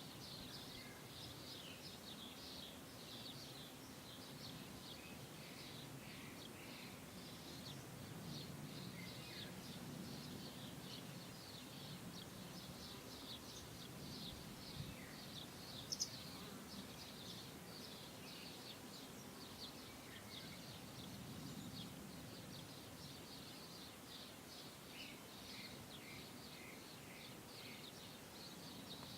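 Faint outdoor ambience of small birds chirping: many quick, high chirps throughout, over a low steady hum.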